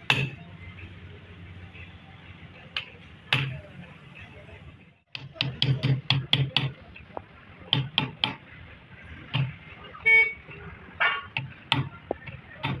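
Sharp knocks and taps, irregular at first, then a quick run of several a second after a brief drop-out about five seconds in. A short horn-like toot sounds about ten seconds in.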